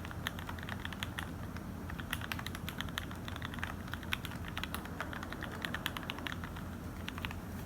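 Typing on a mechanical keyboard with lubed and filmed Gateron KS3 Yellow linear switches in an acrylic Tofu65 case with JTK keycaps: a quick, irregular run of keystroke clacks that stops shortly before the end, over a steady low hum.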